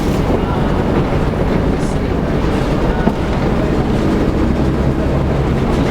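Volvo B7TL double-decker bus's six-cylinder diesel engine running, heard from inside the bus as a steady low rumble with body and drivetrain noise.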